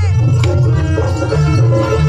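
Live jaranan music from a traditional East Javanese ensemble: drums and pitched percussion playing a steady, loud passage, with a sharp strike about half a second in.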